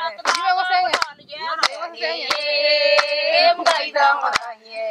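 Women singing together, with a long held note in the middle, over steady hand claps about three every two seconds.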